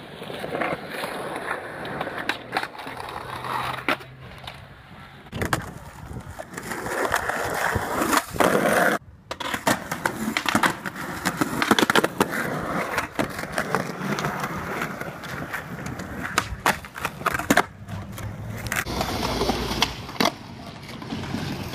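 Skateboard wheels rolling on concrete, broken by sharp clacks and knocks of boards hitting the ground, stairs and a ledge, over several short clips.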